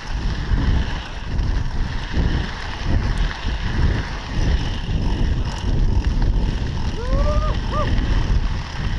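Wind buffeting the camera microphone and a mountain bike's tyres rolling and rattling over a dirt singletrack at speed, in uneven low surges. Two short rising squeaks come about seven seconds in.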